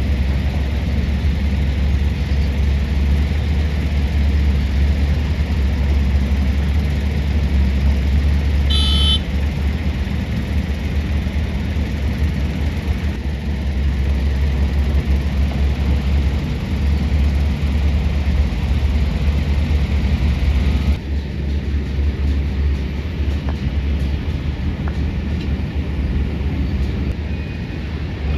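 Heavy diesel mining machinery, a Hitachi hydraulic excavator and dump trucks, running steadily with a loud, deep rumble. A brief high-pitched tone sounds about a third of the way in, and the higher hiss drops away abruptly about two-thirds through.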